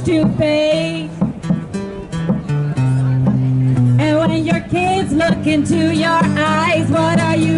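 A woman singing into a microphone with an acoustic guitar accompaniment. About a second in, the voice pauses for a few seconds while the guitar holds its chords, then the singing comes back with vibrato.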